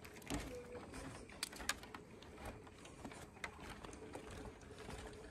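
Faint, irregular clicks and knocks from footsteps on the wooden plank deck of a suspension footbridge, with light rattling from the bridge itself, a few sharper knocks standing out about a second and a half in.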